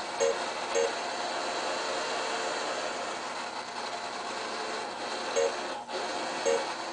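Steady hiss from a powered-on pinball machine, with short, high electronic beeps: a pair about a second in and two more near the end.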